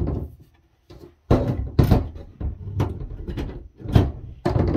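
Flat-blade screwdriver prying at the steel case cover of a Cisco PIX 501 firewall: irregular metal scraping and knocking, with a sharp click about four seconds in.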